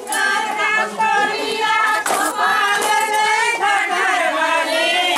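Several women's voices in long, wavering high-pitched singing, with crowd chatter underneath.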